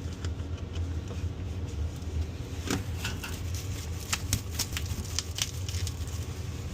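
Irregular clicks and knocks of cleaning equipment being handled and fitted together, over a steady low hum.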